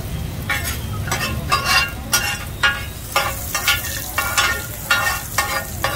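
Hoi tod (mussels in batter) sizzling in a hot pan while a metal spatula scrapes and knocks against the pan about twice a second, over a steady low rumble.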